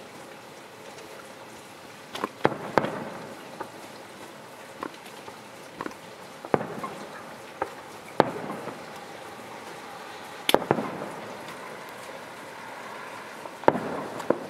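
Aerial firework shells bursting: a string of sharp bangs at irregular intervals, each trailing off in an echo, with the loudest near the middle and a pair close together about two-thirds of the way through.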